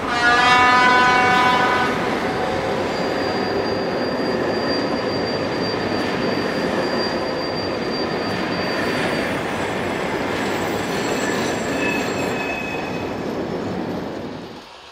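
A diesel-hauled passenger train: a locomotive horn sounds for about two seconds, then the train rolls on with a steady rumble and thin, high wheel squeal. The sound fades out near the end.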